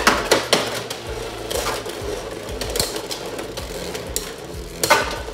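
Two Beyblade X spinning tops, RhinoHorn and Phoenix Wing, spinning and clashing in a plastic Beyblade X stadium: rapid clacking of top against top and against the stadium wall, with a loud hit about five seconds in.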